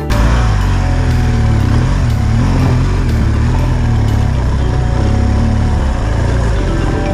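BMW GS adventure motorcycle's boxer-twin engine running as it rides a rough dirt track, the engine note wavering up and down with the throttle over wind and gravel noise.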